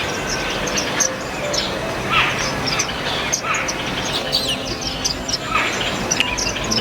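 Several garden songbirds chirping, a dense run of short, high chirps with a few lower, falling notes mixed in.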